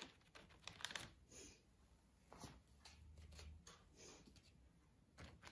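Near silence with a few faint, irregular soft dabs of a cleaning sponge pressing acrylic paint onto paper.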